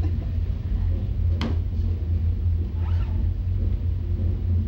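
A steady low hum throughout, with one sharp click about a second and a half in as a handheld microphone is picked up and handled.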